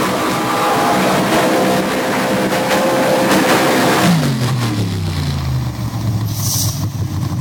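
Lifted Ford pickup's engine held at full revs under load as it pulls the weight sled; about four seconds in the revs drop off sharply and settle to idle as the pull ends.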